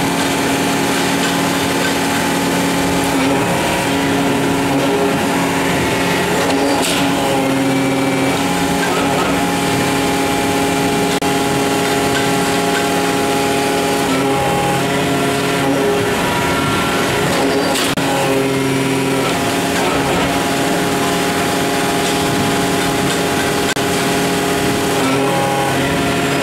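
Alpha 500-ton powder compacting press running through its cycle while pressing powder-metal parts: a loud, steady machine hum made of several tones that shifts pitch about every eleven seconds, with a short sharp noise once per cycle, about seven seconds in and again eleven seconds later.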